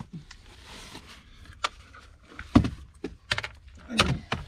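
Scattered clicks and knocks of hand tools and plastic trim being handled under a car's dashboard. The loudest knock comes about two and a half seconds in, with another around four seconds.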